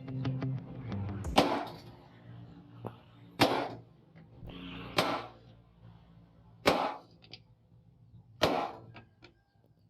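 Hammer striking steel: five separate metallic clangs, each with a short ring, about one and a half to two seconds apart.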